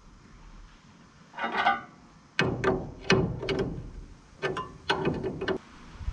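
Metal clanks from the reel-speed adjusting linkage of a Massey Ferguson 31 combine being worked by hand. A scraping clank comes about a second in, then a run of about eight sharp metal knocks, some ringing briefly.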